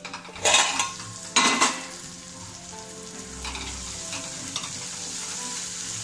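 Two loud metal clatters, the covering plate coming off the pan. Then onion, capsicum, tomato and peas sizzle steadily in oil in a kadhai, stirred with a wooden spatula.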